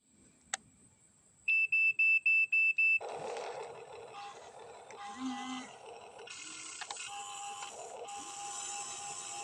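Six quick, loud, high-pitched electronic beeps, about four a second, followed by a busy jumble of noise and steady tones.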